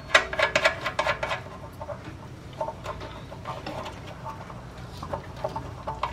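Hand ratchet wrench clicking as a bolt is worked loose, in quick runs of clicks for the first second and a half, then scattered clicks.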